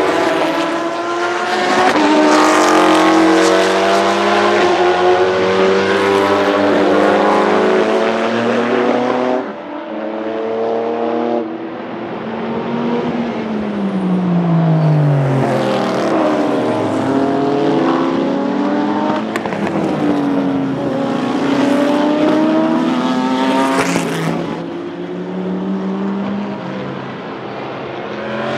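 Several race cars accelerating hard and passing at speed, their engine notes climbing through the gears and dropping in pitch as they go by. Among them is the Matech Ford GT GT1 with its 5.3-litre V8.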